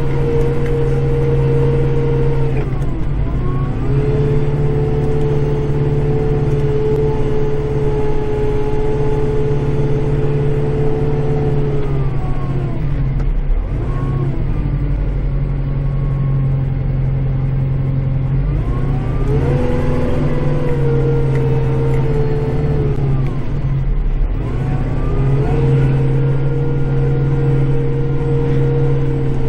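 Kubota tractor engine running steadily, heard from inside the cab. A higher whine over it sags in pitch and fades out several times, then comes back, as the load and travel change while the tractor clears snow.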